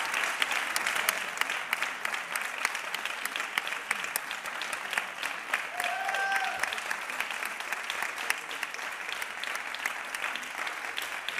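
Concert-hall audience applauding steadily, a dense patter of claps. About six seconds in a single voice calls out briefly over the clapping.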